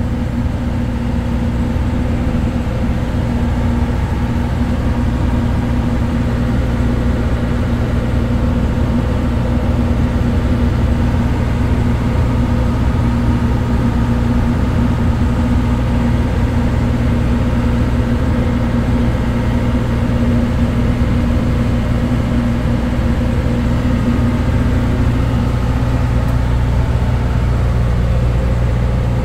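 Ship's engine machinery running steadily: a constant low drone with a steady tone in it.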